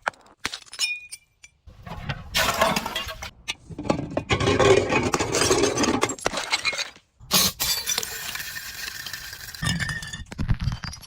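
Glass bottles being crushed and breaking: a few sharp clinks, then two long stretches of crunching, shattering glass, the first starting about two seconds in and the second about seven seconds in.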